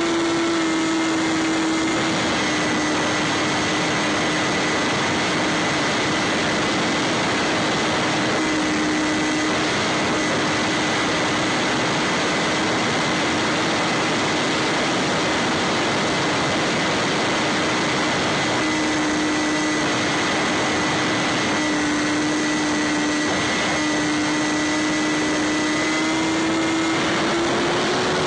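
Electric motor and pusher propeller of a Bixler 3 foam RC plane running steadily in flight, heard from its onboard camera as a constant whine over a rush of airflow. The pitch dips and rises a little near the end as the throttle changes.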